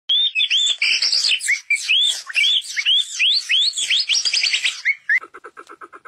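Loud, varied songbird song of rich whistled phrases, many rising sharply, with notes overlapping. About five seconds in it gives way abruptly to a fast, even train of lower pulsed calls, about six a second.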